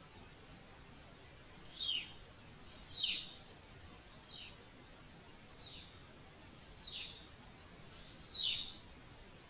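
A night bird giving six short, high-pitched calls, each sliding steeply down in pitch, spaced about a second or a second and a half apart, with the last call the loudest.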